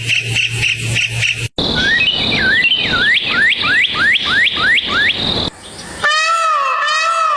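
Bird calls in a few clips edited together: a fast, even pulsing chirp, then a run of quick rising whistled notes that speed up, then a repeated call with several tones arching up and down.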